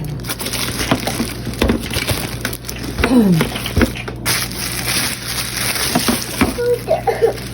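Cardboard box and packaging being opened and handled: a run of scattered knocks, crinkles and scrapes.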